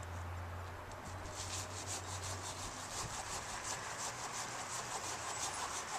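Hand pruning saw cutting through a tree limb in quick, even strokes, about four or five a second, starting about a second in.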